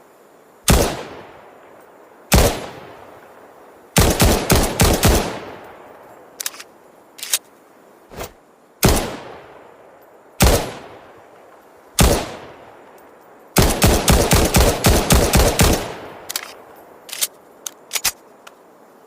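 Ruger Security-9 9mm semi-automatic pistol firing: single shots a second or two apart, each with an echoing tail, and two fast strings of shots, about half a dozen about four seconds in and about ten near the two-thirds mark. A few quieter, sharp clicks fall between the shots and near the end.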